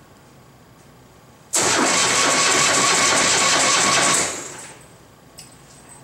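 Electric starter cranking a 2008 Ural Tourist's air-cooled flat-twin engine during a compression test, so it turns over without firing. It starts suddenly about a second and a half in, runs steadily for under three seconds, then winds down.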